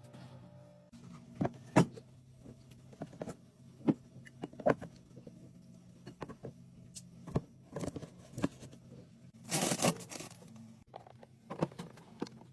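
Items being set into a mini fridge during a restock: a string of separate light clicks, taps and knocks of goods being placed and arranged, with a brief louder rustle of packaging about nine and a half seconds in.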